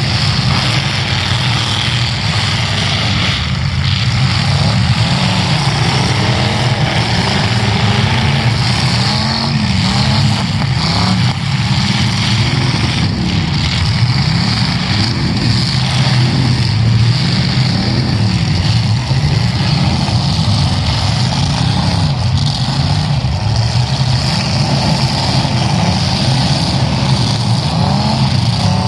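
Several demolition-derby cars' engines revving hard at once, their pitches rising and falling as they push and ram each other in the mud, with a few knocks of collisions.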